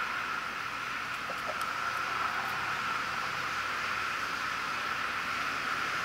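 Steady outdoor background hiss, even in level, with a couple of faint ticks about a second and a half in.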